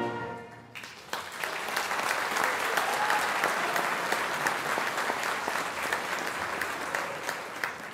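A band's held final chord dies away, then a large audience breaks into applause about a second in, clapping steadily for several seconds before tailing off near the end.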